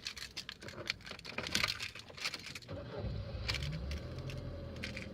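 Rustling and clicking handling noises, then a steady low rumble with a faint hum that starts suddenly about halfway through and carries on under a few more clicks.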